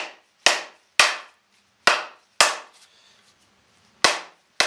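Mallet striking the end of a hickory axe handle to drive a forged pickaroon head onto it. Seven sharp knocks, about two a second, with a pause of about a second and a half in the middle.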